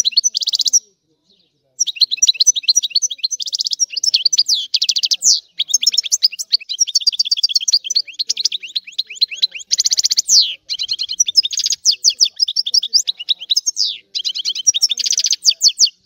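European goldfinch singing: a long, almost unbroken run of rapid twittering trills and chirps, with a short pause about a second in.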